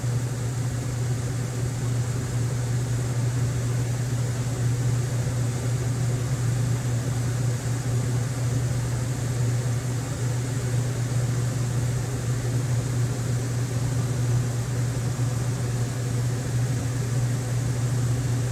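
Steady low hum with an even hiss behind it, constant throughout with no change: the background drone of the recording room, like a fan or air conditioner running.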